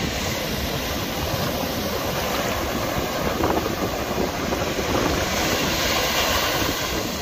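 Steady rushing wash of ocean surf, with wind rumbling on the microphone.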